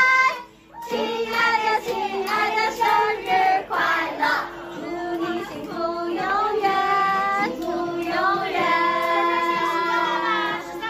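High female voices singing an upbeat Mandarin pop song, with music.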